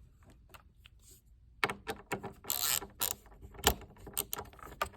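A screwdriver being handled at the screws on the back of a computer case: a run of irregular clicks and a short rattle that start about a second and a half in.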